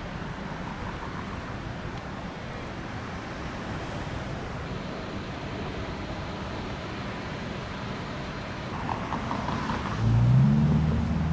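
Steady street traffic noise from passing cars, with one vehicle's engine growing louder and rising in pitch near the end.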